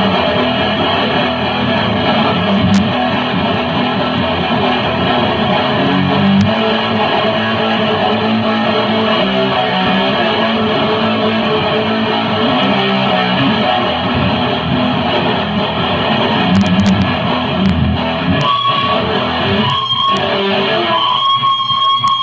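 Loud guitar playing, thick and continuous. Near the end the sound thins out and two steady high tones come in.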